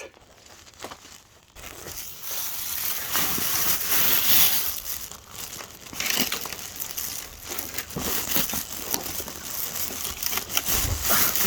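Crunching and rustling of dirt, roots and dry leaves being dug through, starting about a second and a half in and going on unevenly with many small cracks.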